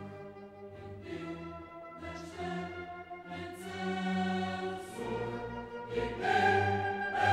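Background music: orchestral music with choir voices, held chords that change every second or so and swell louder near the end.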